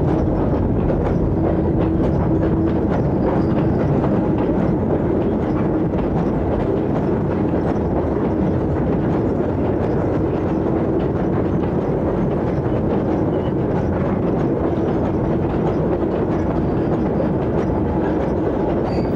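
A train running on rails: a steady rumble with a faint steady hum and many small wheel clicks.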